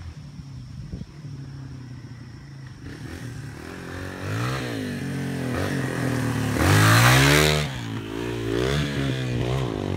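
An off-road vehicle's engine revving up and down several times as it churns through a mud hole, loudest about two-thirds of the way in, where a rush of noise joins it at the peak.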